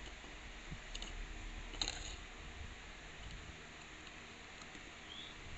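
Faint handling clicks as a cable connector is pushed onto a TV mainboard tester's adapter board, the clearest about one and two seconds in, over low room hum.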